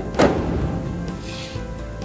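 Background music, with one sharp metallic clunk about a quarter-second in as a stainless steel front panel is knocked into place on a washer extractor, and a brief scrape a little past the middle.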